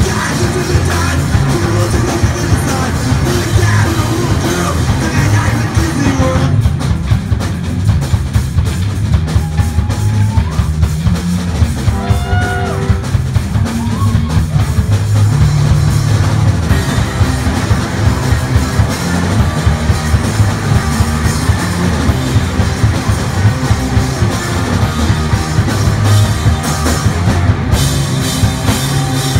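Rock music: a band playing, with drum kit and guitar and a voice singing at times.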